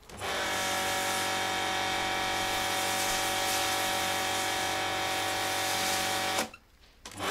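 Pressure washer running: a steady motor-pump drone under the hiss of the spray. It cuts out sharply about six seconds in and starts again near the end, as the trigger is let go and pulled again.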